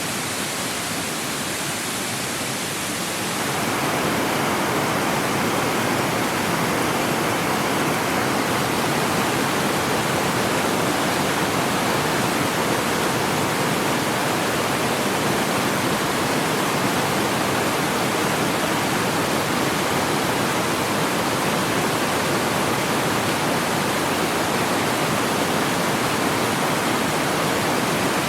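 Mountain waterfall, a steady rush of falling water that grows louder and fuller about three seconds in, then holds.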